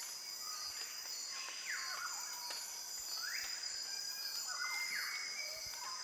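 Insects buzzing steadily at a high pitch, with a bird's rising call repeated about every second and a half to two seconds.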